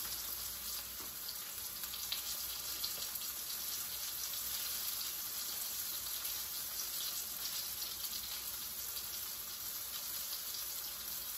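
Steady high hiss of battered fish frying in hot oil, with faint scattered crackles.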